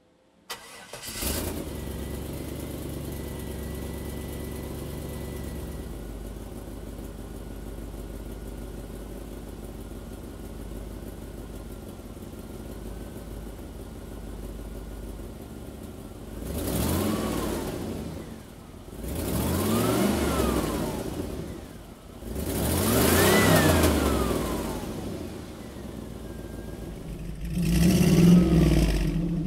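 1948 Ford panel truck's Corvette V8 starting and settling into a steady idle. It is then revved four times, each rev rising and falling in pitch.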